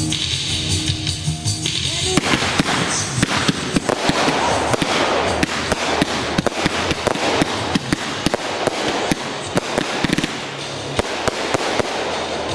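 Music plays briefly, then gives way about two seconds in to a ground firework going off: a dense, irregular crackle of sharp pops and cracks from the burning sparks.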